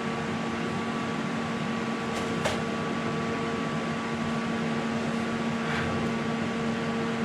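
Steady electrical hum of a TIG welder's power unit and cooling fan running ready to weld, with one faint click about two and a half seconds in.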